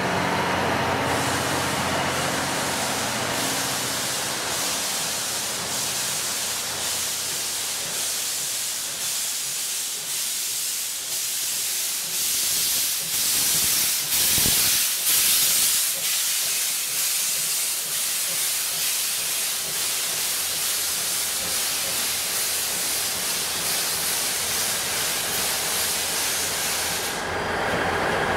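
Steam locomotive C57 180 hissing loudly as it lets off steam while moving slowly past, with faint regular pulses in the hiss. It is loudest about halfway through, and the hiss cuts off shortly before the end.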